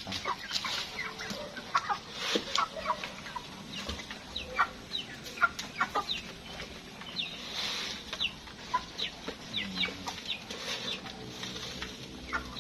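A flock of broiler chickens clucking and giving many short, high peeps as they crowd around freshly scattered feed.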